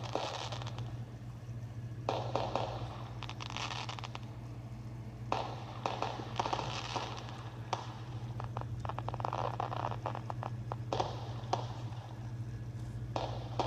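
Fireworks crackling in repeated bursts of about a second each, with sharp pops, over a steady low hum.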